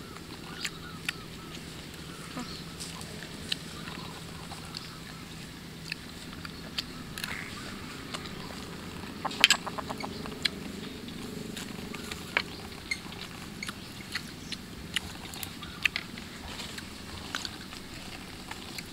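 Chewing and mouth sounds of someone eating grilled mackerel, with scattered sharp clicks and small taps of a metal spoon. About nine and a half seconds in there is a brief rapid run of clicks, the loudest moment, over a faint steady low hum.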